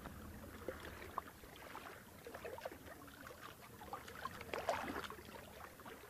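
Faint water lapping and trickling, with many small irregular splashes and drips that build to a peak about four and a half seconds in, then fade away near the end.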